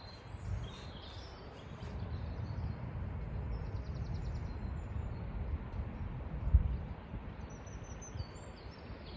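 Uneven low rumble of wind on the microphone, with one stronger gust about six and a half seconds in. Faint bird calls sound over it: a quick high trill about four seconds in and a few short chirps near the end.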